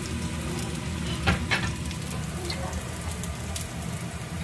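Sliced green onions frying in oil in a frying pan, a steady sizzle with fine crackles. A brief knock sounds about a second in.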